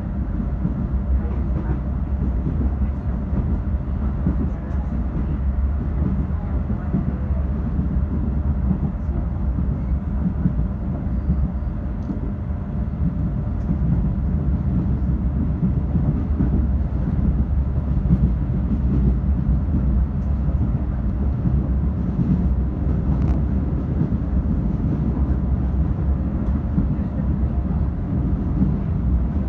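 Steady rumble of a moving suburban electric train, heard from inside the carriage, with a faint steady hum over it.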